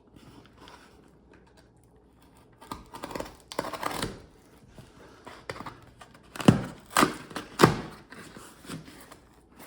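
Packing tape on a cardboard box being slit with a scalpel and pulled free, with scratchy cutting and tearing sounds and three sharp, loud strokes in quick succession about two-thirds of the way through.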